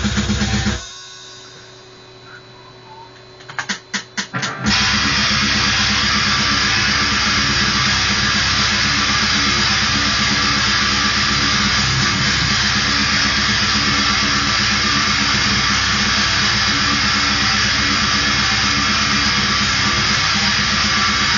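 Electric guitar playing a death metal riff: a short loud stab at the start, a quieter gap, a few fast chugs about four seconds in, then dense, fast continuous riffing from about five seconds on.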